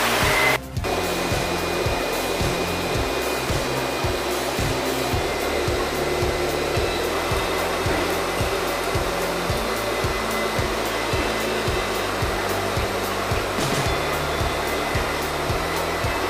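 Steady rushing machine noise from paper-handling rollers, with a music track's bass line and beat underneath. The sound cuts out briefly about half a second in.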